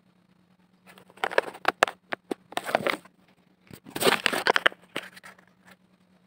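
Handling noise from the camera being moved: rustling, crackling and sharp knocks rubbing close against the microphone, in two main bunches between about one and six seconds in.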